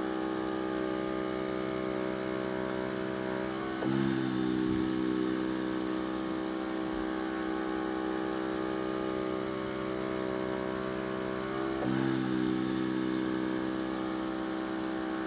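O2 Concepts OxLife Liberty 2 portable oxygen concentrator running on continuous flow setting 2, a steady mechanical hum of several tones. The hum shifts in pitch and briefly gets louder about four seconds in and again near twelve seconds. The unit was switched on moments earlier and is still in its louder warm-up period.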